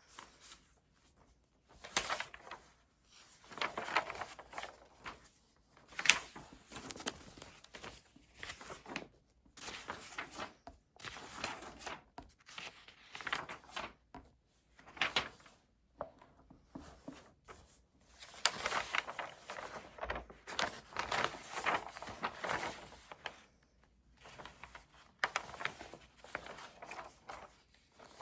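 Writing on paper at a desk in short irregular stretches of scratching, with sharp taps and knocks of the pen and desk things in between.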